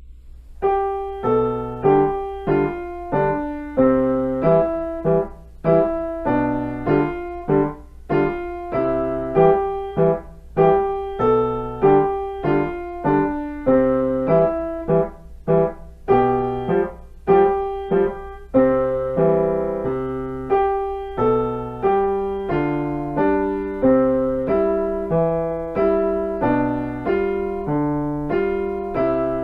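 Piano playing a set of variations: melody notes and chords struck in a steady pulse, each ringing and fading, with the playing growing softer about two-thirds of the way through.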